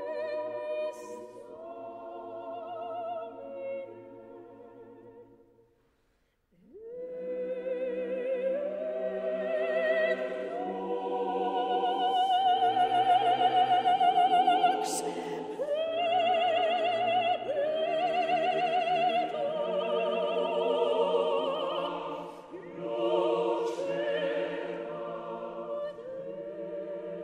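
Background music: classical choral singing, voices held on long notes with vibrato. The singing breaks off briefly about six seconds in, then resumes and grows louder.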